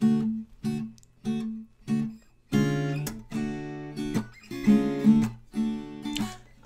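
Acoustic guitar strummed as a song intro: four short, clipped chords about two-thirds of a second apart, then a fuller, ringing strumming rhythm from about two and a half seconds in.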